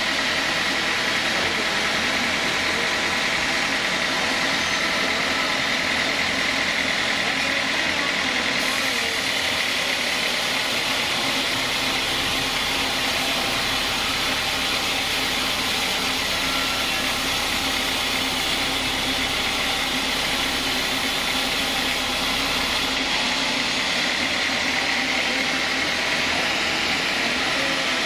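Band sawmill running, its blade cutting lengthwise through a large wooden beam: a steady machine drone with a high whine.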